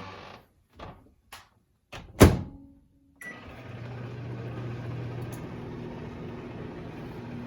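Microwave oven being started: a few light clicks and one loud thunk about two seconds in, then about three seconds in the oven begins running with a steady hum and fan noise.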